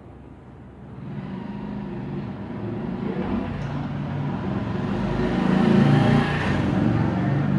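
A motor vehicle passing by, its engine growing louder to a peak near the end and then beginning to fade.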